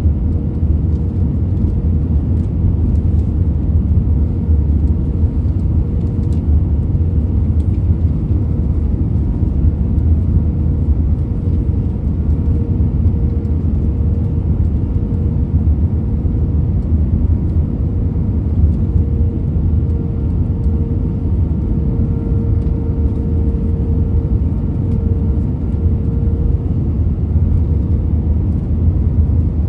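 Steady cabin noise inside an Airbus A320-232: the even rumble of airflow and its IAE V2500 engines, with a faint steady hum above it.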